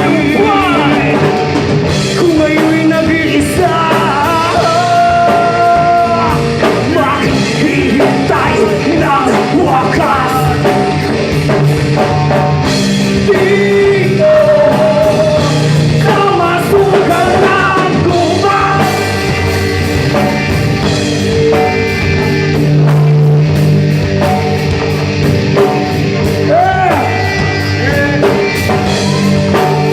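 Live rock band playing a song, with a singer's voice over electric guitar, bass guitar and a drum kit.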